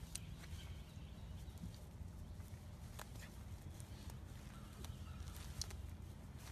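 Small dog rolling and wriggling on its back in grass: faint scuffing and rustling with a few short sharp clicks, over a low steady rumble.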